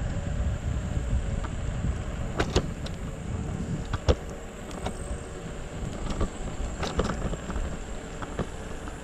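Hover-1 electric scooter rolling along a paved path: a steady low rumble of tyres and wind on the microphone, with sharp clicks and rattles as the wheels hit bumps and pavement joints, the loudest about two and a half, four and seven seconds in.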